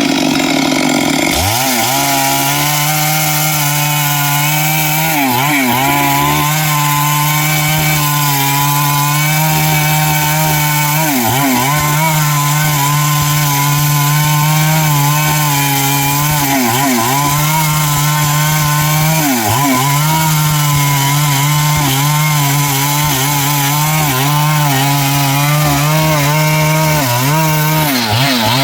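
Stihl MS382 two-stroke chainsaw with a 24-inch bar running at high revs while cutting through big timber. Its engine note dips briefly and recovers several times as the chain loads up in the wood.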